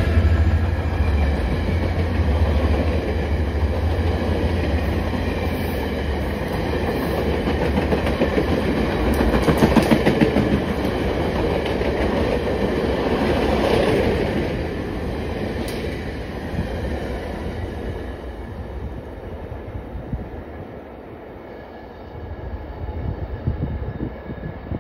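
Stainless-steel passenger cars of a VIA Rail train rolling past at speed, wheels clacking over the rail joints. The diesel locomotives' hum trails off in the first seconds. The rumble of the cars swells and then dies away after about eighteen seconds as the tail car moves off.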